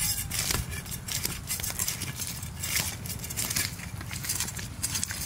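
Carp being scaled and cut against upright boti blades: rapid, irregular scraping strokes, several hands working at once.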